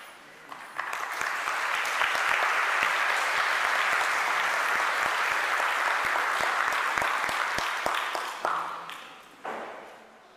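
Congregation applauding: the clapping starts about a second in, holds steady for several seconds, then dies away near the end.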